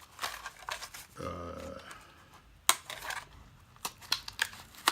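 Toy car packaging being handled and opened: irregular plastic and cardboard clicks, crinkles and taps, with one sharp snap about 2.7 seconds in.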